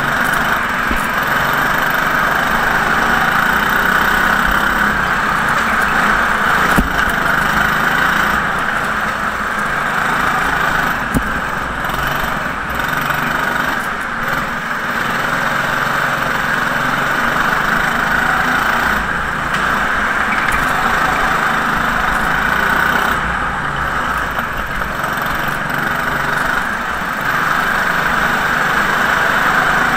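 Go-kart engine running continuously at speed, heard from a camera mounted on the kart.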